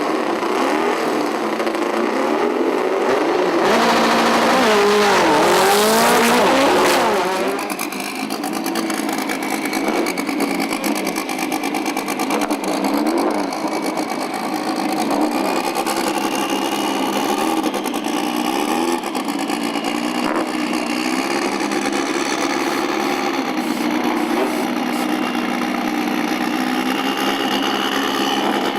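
Car engines running, with a loud stretch about four to seven seconds in where engine pitch sweeps up and down as a car is revved hard. After that, engines keep running more steadily.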